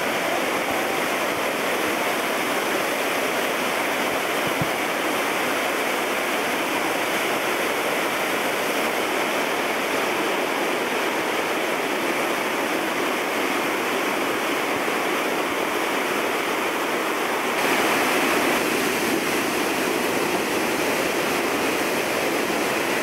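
Mountain brook in full flood, its brown whitewater rushing and churning over the falls in a steady, loud roar. About three-quarters of the way through the rush becomes louder and brighter.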